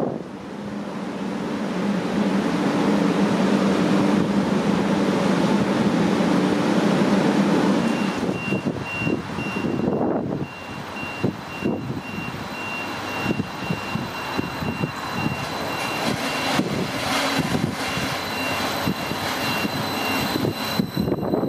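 Train running past: a steady low drone for the first several seconds, then irregular clacking of wheels over rail joints. A high beep repeats from about eight seconds in.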